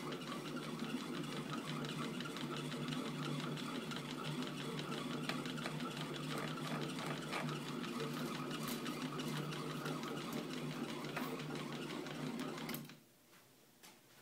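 Litton F glass lathe running, its motor and drive giving a steady hum with fast, fine clicking as the chucks spin; it shuts off abruptly about a second before the end.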